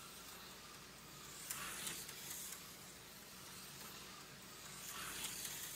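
Aurora slot car running laps on a small plastic oval track: a faint buzzing hiss from the tiny motor and pickups on the rails, swelling twice as the car comes round near the microphone, over a steady low hum.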